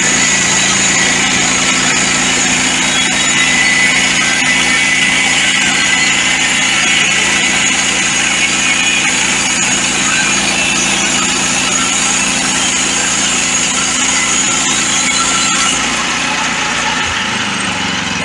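Portable band sawmill's small gas engine running steadily under load, with a high hiss from the blade cutting through a pine log. About sixteen seconds in, the high hiss fades and the engine note changes.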